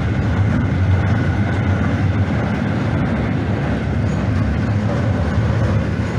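Freight train's flat wagons rolling past close by: a steady, loud rumble of wheels on the rails, with a few faint clicks.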